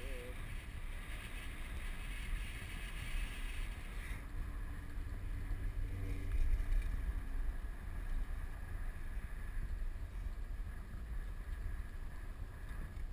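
Wind buffeting a GoPro camera's microphone on a moving chairlift: a steady, gusty low rumble, with a thin hiss over it for the first few seconds.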